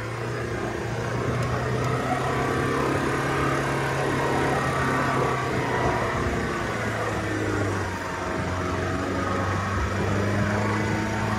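Land Rover Defender's 2.0-litre four-cylinder diesel engine working steadily under load as the vehicle climbs a soft sand slope. The engine note dips briefly about eight seconds in, then picks up again.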